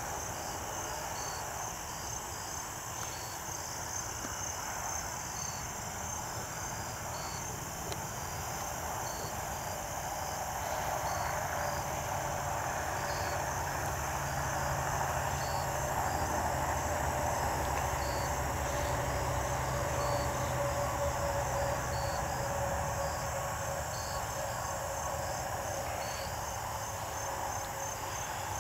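Crickets chirping steadily in a fast, even pulse, with separate short high chirps repeating about once a second. A low, steady rumble rises in the middle and eases off toward the end.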